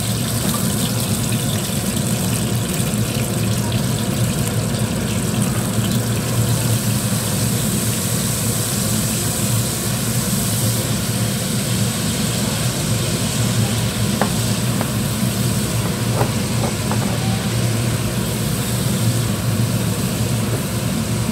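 Sauce sizzling and bubbling in a frying pan on the stove, over a steady low hum.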